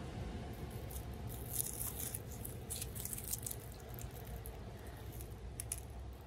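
Dry, charred corn husk crackling and tearing as it is peeled by hand off a fire-roasted ear of corn, in short crisp bursts, densest in the first half and again near the end, over a steady low background rumble.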